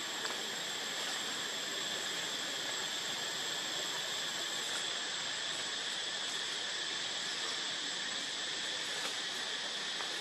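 Steady drone of insects in forest, with a thin high whine held above it and an even hiss underneath.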